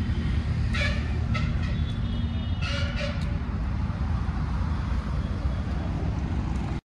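Steady low rumble of wind buffeting the phone's microphone along with road traffic, heard while walking outdoors. Two short higher-pitched sounds come about one second and three seconds in. The sound cuts off abruptly to silence just before the end.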